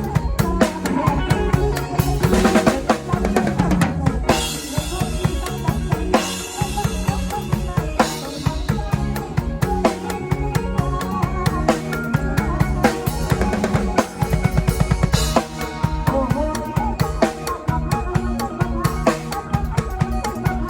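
Instrumental passage of Isan toei/lam music, with a drum kit's bass drum and snare playing a steady beat under other pitched instruments.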